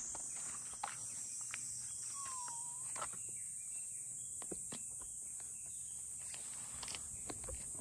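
Steady high-pitched drone of insects, with scattered light footsteps and clicks, and one short whistle that dips in pitch about two seconds in.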